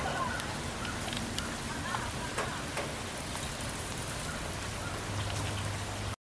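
Steady rain falling, with scattered drops ticking on nearby surfaces; the sound cuts off abruptly near the end.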